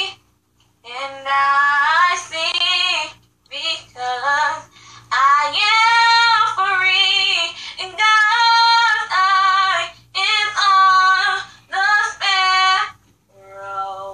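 A girl singing unaccompanied, one voice in short phrases with brief pauses between them and slightly wavering held notes.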